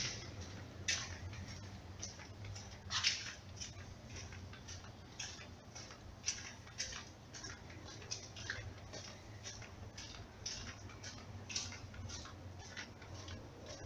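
Footsteps on the concrete floor of a pedestrian underpass, short sharp steps at about two a second, over a low steady hum.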